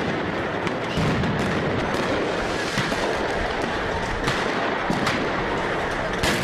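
Loud steady din around a burning armoured personnel carrier, broken by several sharp bangs a second or so apart, the last and loudest near the end.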